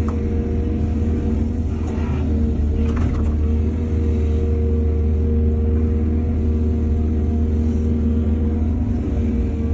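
Excavator's diesel engine running steadily with a low rumble, with brief clatters about two and three seconds in.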